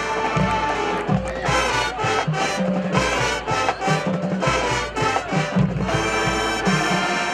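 College marching band playing a brass-led tune over a steady beat.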